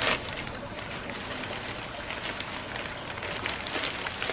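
Steady, soft crackling rustle of plant packaging being handled while a plant is unwrapped.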